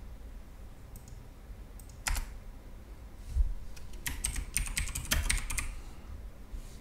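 Typing on a computer keyboard: a few separate keystrokes, then a quick run of key clicks about four seconds in. There is a thump about three and a half seconds in.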